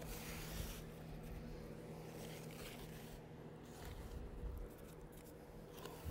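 Faint scratchy brushing of chip brushes working wet urethane coating into the edges of the floor, over a steady low hum.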